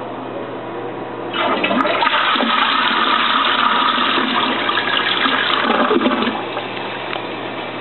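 Eljer toilet flushing: a rush of water starts suddenly about a second and a half in, runs strongly for about five seconds, then drops away, leaving a steady background hum.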